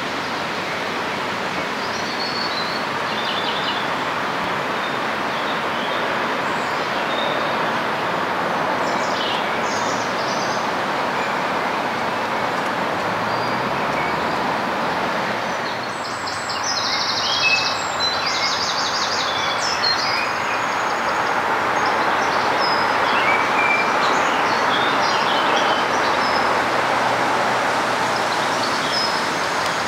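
Steady rushing background noise, with small birds chirping over it and a quick run of repeated high notes from a songbird about 17 seconds in.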